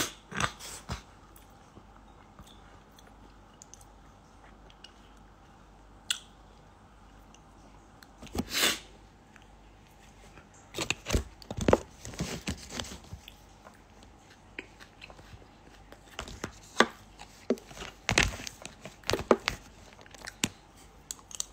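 Crunchy chewing close to a phone microphone, in scattered bursts of short crunches and clicks with quiet stretches between.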